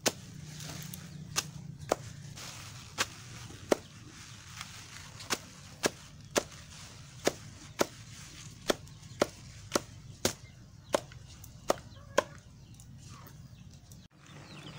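Long-bladed knife chopping taro stalks and leaves for pig feed, sharp separate strikes coming irregularly about once or twice a second, stopping near the end.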